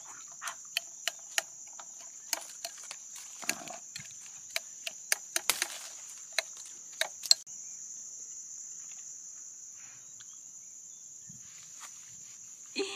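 Insects droning steadily on one high pitch. During roughly the first seven seconds there are many sharp, irregular clicks and ticks, which stop suddenly.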